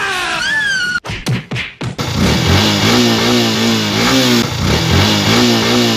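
Motorcycle engine revving in even throttle blips, its pitch rising and falling about one and a half times a second, after a few sharp knocks about a second in.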